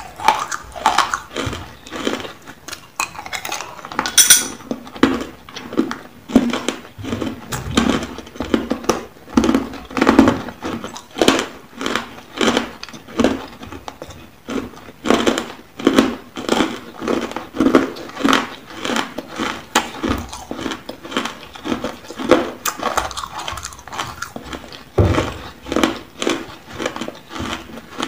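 Ice cubes bitten and chewed close to the microphone, a continuous run of loud crunches, about two a second.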